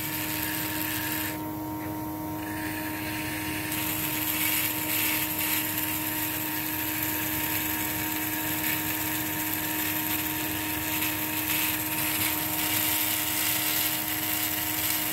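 Surgical straight handpiece spinning a long diamond bur at a steady pitch as it cuts a slot into a model skull, with a grinding hiss that thins out for a couple of seconds near the start.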